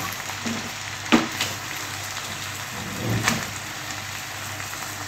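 Honey sauce with sesame seeds bubbling and sizzling in a frying pan, with a wooden spoon knocking against the pan a few times as chicken pieces are turned in it.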